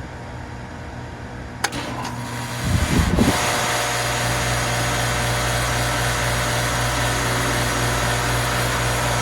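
2010 Philco (Nordyne) 2.5-ton air conditioner starting up, extremely loud: a sharp click about one and a half seconds in, a brief low rumble about a second later, then a steady loud hum with several steady tones as the unit runs.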